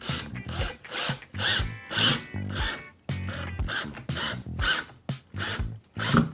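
Power drill driving a pocket-hole screw through a pocket-hole jig's angled hole into a clamped 2x4 joint, with background music.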